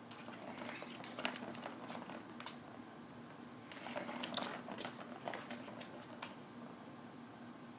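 Kitten batting a plastic ball around the channel of a Bergan Turbo Track cat toy: paws and ball clicking and rattling against the plastic track in two bursts, one starting about half a second in and one around four seconds in, over a faint steady hum.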